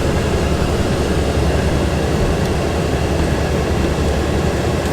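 Steady low mechanical drone of running machinery, even and unbroken throughout.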